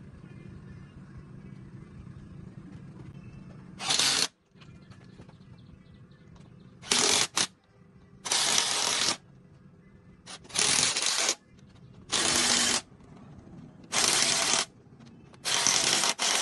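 A run of short, loud hissing bursts, about eight of them starting about four seconds in, each lasting under a second with short gaps between.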